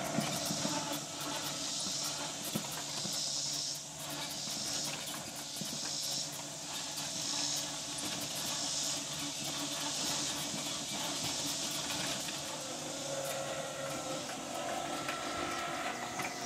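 Electric lawn tractor, converted to a Ryobi 40 V motor driving through a cog belt, running steadily across grass with a steady motor and drive hum. A high hiss swells and fades about every second and a half.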